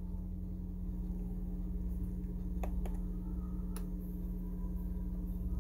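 Steady low hum with three faint clicks coming through a Technics SL-10 turntable's playback while no music is playing.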